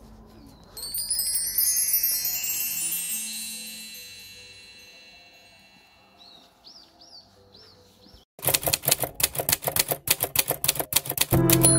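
A bright shimmering wind-chime sound effect rings out about a second in and fades away over the next few seconds. Four short chirps follow, then from about eight seconds in a fast run of sharp clicks, like typewriter keys, at about five a second; music begins just before the end.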